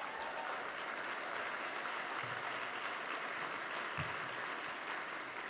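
Audience applauding steadily, fading a little near the end.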